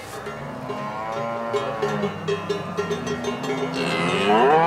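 Brown Swiss cows mooing: a long moo about a second in, then a louder one rising in pitch near the end.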